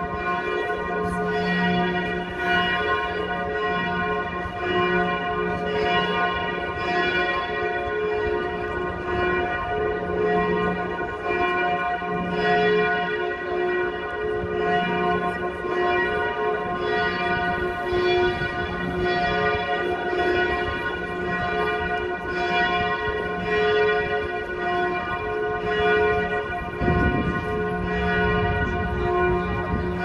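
Several church bells of St. Stephen's Cathedral ringing together in a continuous peal, strokes falling about once or twice a second over their many overlapping, lingering tones.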